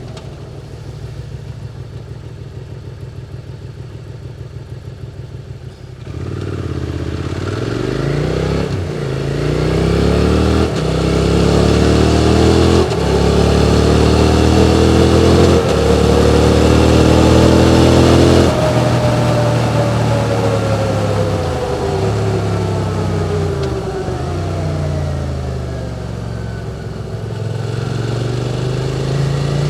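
QJ Motor SVT650X parallel-twin engine through an Arrow Racetech slip-on exhaust. It idles for about six seconds, then pulls away and accelerates, with four upshifts cutting the pitch. It holds a steady speed, then rolls off and slows with several downshifts, and picks up speed again near the end.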